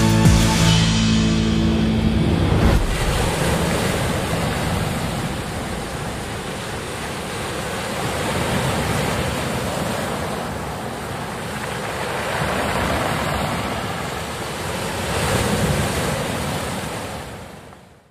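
Music ends about three seconds in, leaving sea waves washing in and receding in slow swells. The sound fades out at the very end.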